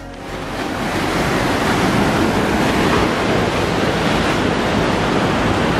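Surf from a rough sea breaking and washing against a rocky shore, a steady rushing noise that swells over the first second, with wind buffeting the microphone.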